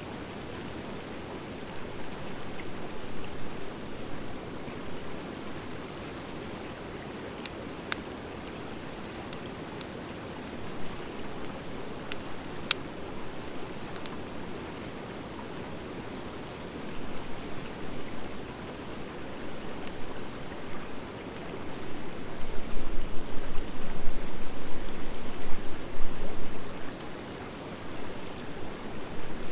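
Campfire of driftwood and hardwood logs burning: a steady rush of flame with scattered sharp crackles and pops. About three-quarters of the way through, a deeper rumbling swell rises and grows louder for several seconds.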